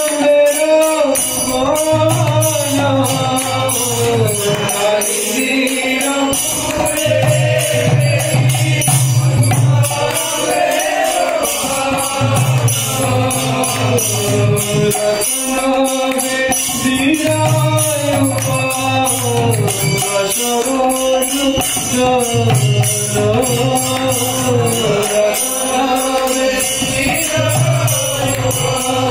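A man singing a Bengali devotional bhajan in a sliding, ornamented melody. He is accompanied by a khol (mridanga) barrel drum and a steady metallic jingle keeping time.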